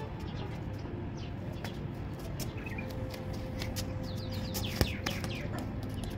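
Small birds chirping and tweeting in quick, repeated short calls over a steady low background hum, with one sharp knock a little before the end.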